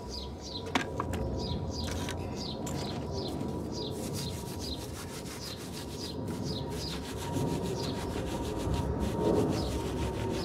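Bristle wheel brush scrubbing a wet, foamy alloy wheel between the spokes, a fast rubbing swish. A bird calls with a short falling chirp over and over in the background.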